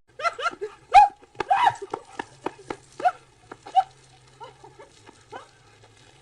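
An animal making a quick series of short, high calls, each dropping in pitch, loudest in the first few seconds and then fainter and sparser.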